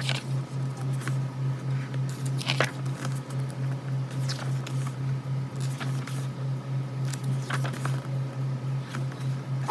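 Pages of a photo book being turned by hand: several soft paper swishes a second or two apart, over a steady low hum.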